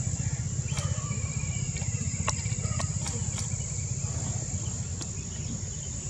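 Steady high-pitched drone of insects, typical of crickets, over a continuous low rumble, with a few faint clicks and short chirps between about one and three and a half seconds in.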